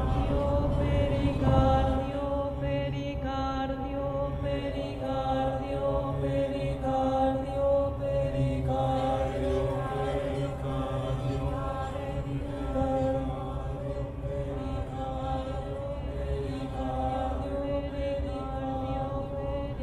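Contemporary ensemble music: layered, held notes that shift in pitch every second or so over a continuous low drone.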